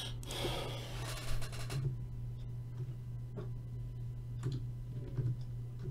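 Faint scattered clicks of a computer keyboard and mouse over a steady low electrical hum, with a short burst of noise in the first two seconds.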